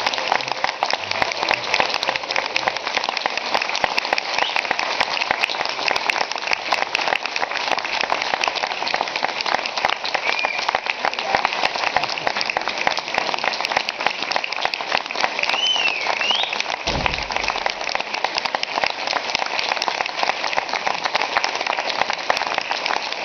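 Sustained audience applause: dense, even clapping from a theatre crowd. About two-thirds through there is a brief high wavering glide over the clapping, followed by a single low thump.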